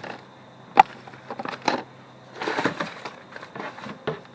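Flat-pack cabinet parts being handled: a sharp knock a little under a second in, a few lighter clacks, a short rustle in the middle and another knock near the end.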